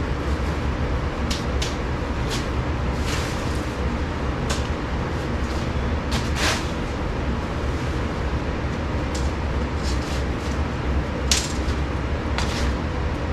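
Tent being put up: irregular short clicks and rustles of nylon tent fabric and clips against aluminum poles, about a dozen in all, over a steady low rumble.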